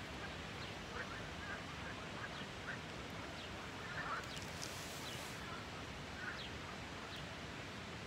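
A chorus of frogs croaking: many short, quack-like calls at scattered pitches, one overlapping the next, over a steady background hiss.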